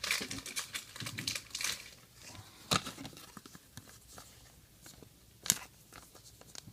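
Trading cards and a pack wrapper being handled, crinkling and rustling, densest in the first couple of seconds. Two sharp taps cut through it, one nearly three seconds in and another about five and a half seconds in.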